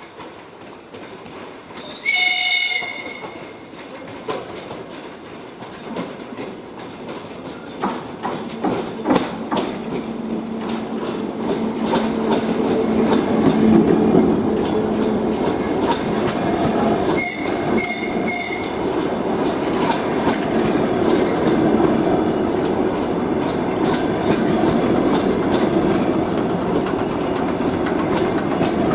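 DR1A diesel multiple unit arriving at a station: a short horn blast about two seconds in, then its wheels clicking over rail joints and points while the engine and rolling noise grow louder as the cars pass close by. A second, fainter horn blast comes about two-thirds of the way through.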